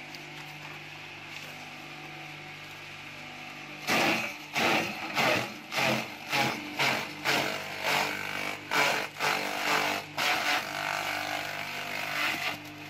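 Small electric forage chopper running with a steady hum. From about four seconds in it chops fresh hybrid Sudan grass stalks as they are fed in, giving loud chopping bursts about two a second.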